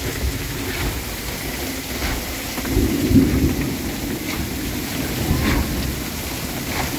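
Heavy rain pouring onto the water and the houseboat, with runoff streaming off the roof edge, a steady dense hiss. A louder low rumble swells about three seconds in.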